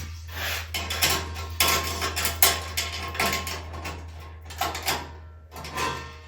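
Metal clunks, knocks and rattles of equipment being handled and set onto a steel welding cart, several irregular impacts over a steady low hum.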